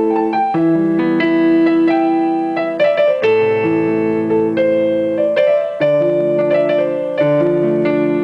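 Background piano music: slow sustained chords and a melody line, changing every second or so.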